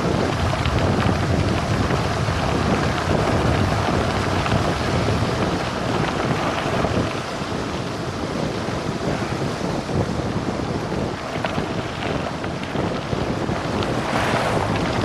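Heavy wind rushing over the microphone of a bike-mounted camera during a fast descent on a cyclocross bike, mixed with the rumble of tyres on loose gravel. The noise stays dense and steady, swelling briefly near the end.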